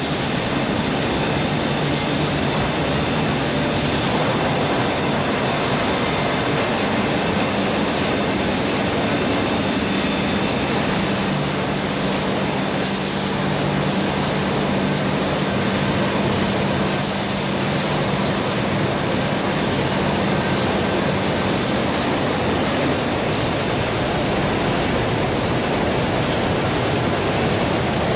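Poultry processing machinery running steadily, a constant mechanical din with a low hum, broken by a few short hisses.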